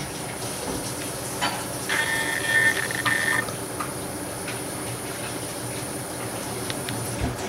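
Steady hiss of room background noise, with a few light clicks and a short pitched whistling tone about two seconds in; a faint high whine stops near the end.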